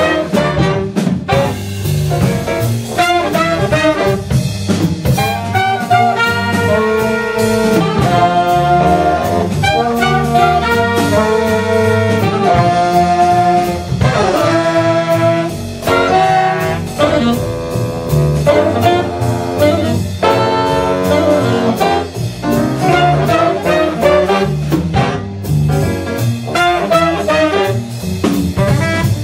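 Live jazz octet: a horn section of trumpet, trombone and saxophones playing the theme in harmonized ensemble lines over piano, upright bass and drums.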